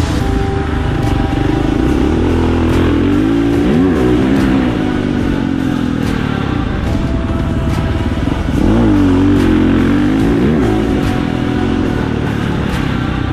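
Husqvarna FC 450 four-stroke single-cylinder motocross engine revving up and down as the bike is ridden around a dirt track. It gets louder a little past halfway, with several quick rises and falls in pitch.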